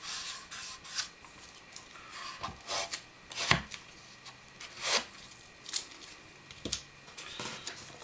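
Hands rubbing and pressing wet leather on a wooden forming board, with a scatter of sharp taps and clicks, the loudest about three and a half seconds in.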